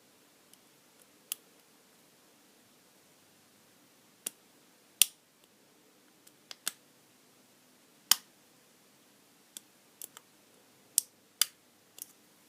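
Brady Abus 32.5 mm lockout padlock being picked: a dozen or so sharp, irregular clicks from the pick and the pins in the pin-tumbler core, the pins setting as it is worked toward opening.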